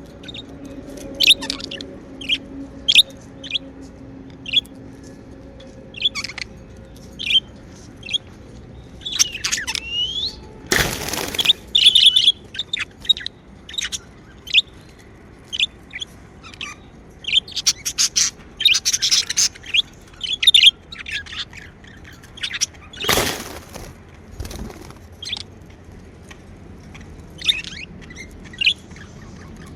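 Pet budgerigars chirping: many short, high chirps scattered throughout, with two brief rustling noises about eleven and twenty-three seconds in.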